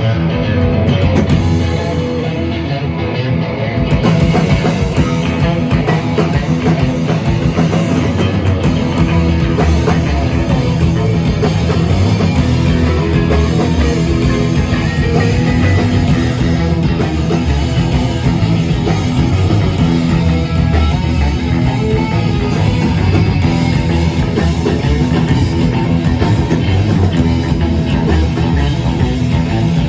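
Rock band playing live on amplified electric guitars with drums. The full band comes in louder about four seconds in and keeps up a steady driving rock beat.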